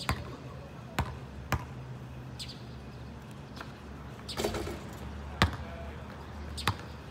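Basketball bouncing on an asphalt court: single sharp bounces about every second, a rattling clatter about four and a half seconds in as a shot strikes the hoop and misses, then louder bounces as the ball comes down.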